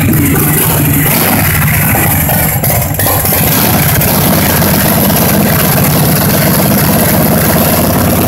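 The chopper's 113-cubic-inch Ultima El Bruto V-twin engine running loud, with a brief dip about three seconds in, then running steadily at idle.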